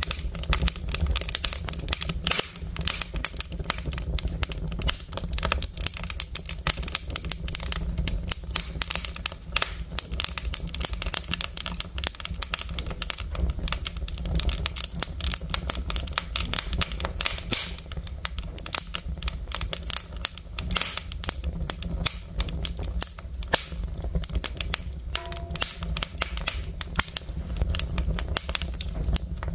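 Logs burning in a wood-stove firebox, crackling and popping continuously over a steady low rumble of the flames.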